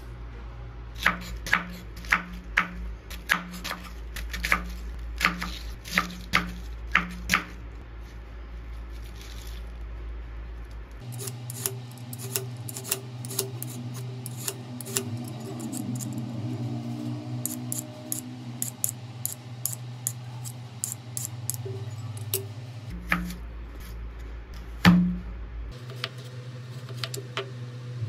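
Chef's knife cutting cabbage on a wooden cutting board, sharp strokes about two a second for the first seven seconds. After a short pause come quicker, lighter strokes as a carrot is worked, and a single loud knock near the end.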